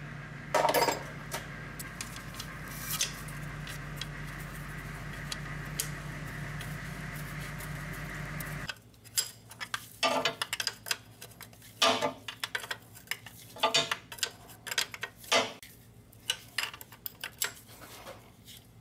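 Steel wrench clinking against a transmission cooler line fitting as it is threaded in and tightened, a string of short irregular metallic clinks that come thickest in the second half. A steady background hum stops abruptly about halfway through.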